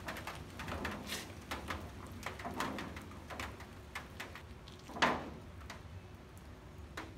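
A homemade rear wing of thin aluminum flashing on steel pieces knocking and scraping against a car's trunk lid as it is handled into place. The knocks and scrapes are short and irregular, and the loudest comes about five seconds in.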